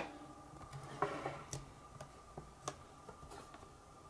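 Faint, scattered ticks and scrapes of a metal dental pick working under the edge of a Logitech Squeezebox Boom's speaker grille to pry it loose.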